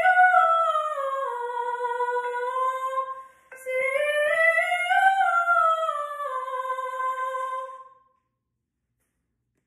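A woman's voice humming a vocal warm-up scale, stepping up and back down to a held note, twice, the second time a little higher. It stops about eight seconds in.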